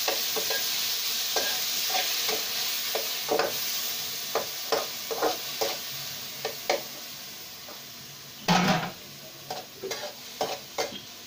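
Chopped tomatoes sizzling in hot ghee with fried onions in a steel karahi, stirred with a metal spoon that scrapes and clinks against the pan. The sizzle dies down gradually, and the loudest scrape comes about eight and a half seconds in.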